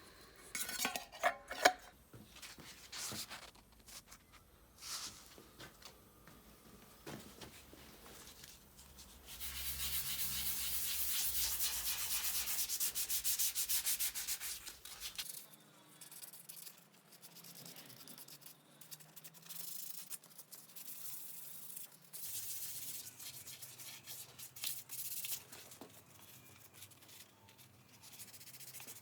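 Rubbing and sanding on a motorcycle frame during restoration. It starts with a few sharp knocks, then a steady hiss for about five seconds in the middle, then short scratchy strokes on and off.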